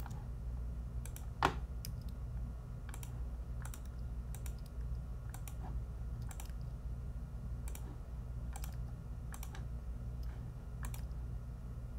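Irregular clicks of a computer mouse and keyboard keys, a couple each second, over a steady low hum.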